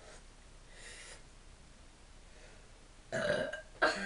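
Faint breathing, then about three seconds in a short loud throaty burp, with another starting just before the end.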